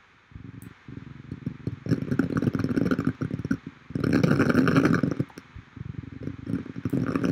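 Synthesized noise from a Blender Audio Nodes noise generator playing through the synth patch: a dense, crackling rumble. It gets louder about two seconds in, is loudest around four to five seconds, and dips briefly just after.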